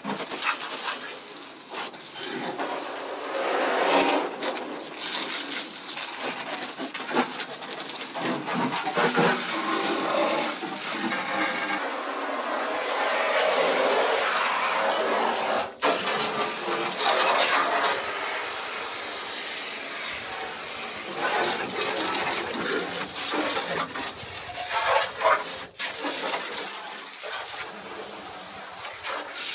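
Pressure washer jet spraying water against the rusty sheet-metal interior of a 1965 VW Beetle body, a steady hiss and spatter, briefly cut twice.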